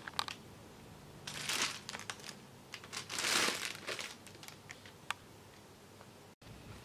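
Thin white plastic carrier bag crinkling as hands handle its tied knot: two louder bursts of crinkling, about a second and a half in and again around three seconds in, with small sharp crackles between them.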